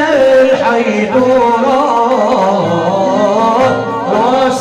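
Constantinois malouf ensemble playing: oud and violin carry a wavering melody over a steady rhythm of darbouka and tar frame drum strokes, while a man sings.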